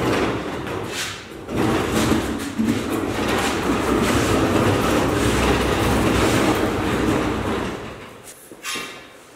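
Metal tool chest on a rolling cabinet pushed across a hard floor: a steady rolling rumble with clatter. It dies away about eight seconds in, followed by a short, lighter scrape.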